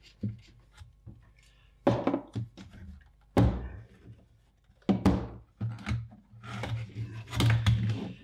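Knocks and clunks of a passive monitor controller's front panel and circuit board being lifted, turned over and set back against its case. There are three sharp knocks about two, three and a half and five seconds in, then a longer run of clattering and rubbing near the end.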